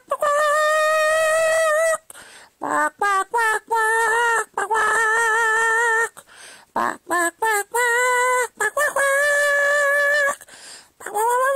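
A woman singing in a mock-operatic style, imitating a chicken, unaccompanied: long high held notes with vibrato alternate with runs of short clipped notes, and a rising note comes near the end.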